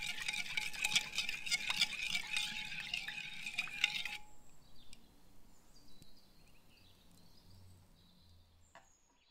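Metal spoon stirring coffee in a ceramic bowl, clinking rapidly against the sides while the liquid swishes. The stirring stops about four seconds in.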